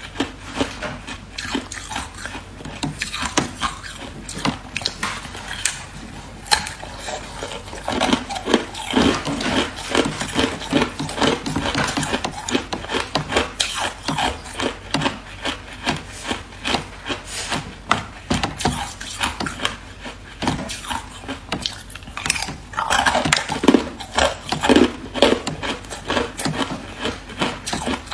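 A person chewing ice close to the microphone: dense, irregular crunching and cracking, many short crunches a second, with heavier bouts of bites about eight seconds in and again a few seconds before the end.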